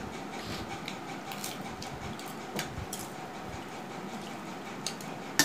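Close-up eating sounds: soft chewing and mouth clicks as rice and curry are eaten by hand, over a steady room hum, with one sharp click near the end.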